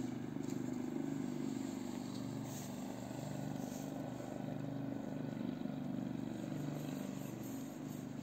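A motor vehicle's engine running steadily, a low drone that shifts slightly in pitch.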